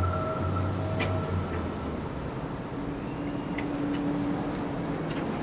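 Steady low rumble of vehicle and traffic noise, with a deep engine-like hum that fades out in the first two seconds and a few faint clicks.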